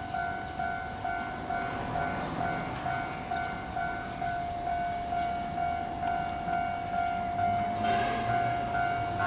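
Japanese railway level-crossing alarm ringing, an evenly repeating two-tone ding. About eight seconds in, a train's rumble rises beneath it as the train nears the crossing.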